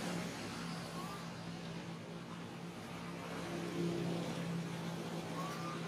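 A steady low motor hum, like an engine running at a distance, with two short rising chirps about a second in and near the end.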